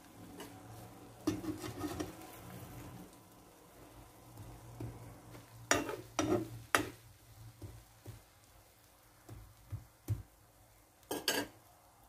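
Spoon scraping and clicking against a non-stick frying pan as eggs fry, with faint sizzling. Sharp clicks come now and then, three close together about six seconds in and two near the end.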